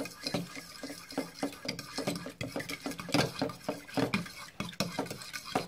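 A metal fork stirring a wet baking-soda and soap paste in a ceramic bowl, clinking and scraping against the bowl in quick repeated strokes.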